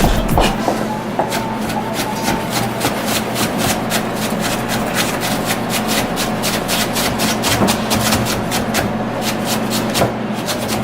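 Chef's knife chopping rapidly on a hard cutting surface, sharp strokes about five a second, over a steady low hum.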